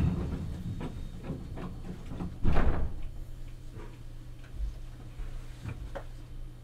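Cabin of a Meitetsu 1000 series 'Panorama Super' electric train moving off at low speed: a steady low hum with scattered clicks and clunks, a heavier knock about two and a half seconds in.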